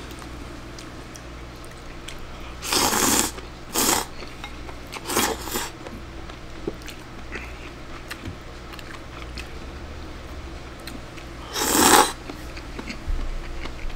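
A person slurping glass noodles and soup: three quick slurps a few seconds in, then one louder slurp near the end as the soup is sipped from the bowl.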